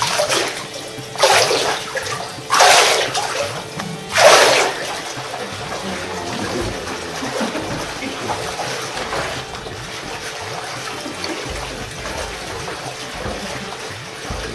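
Elephant-dung paper pulp being stirred into water in a drum: four loud sloshing surges in the first few seconds, then steady churning of the water.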